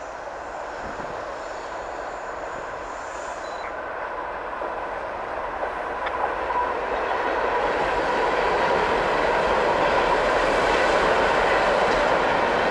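A train running on the rails, its sound growing steadily louder as it draws closer.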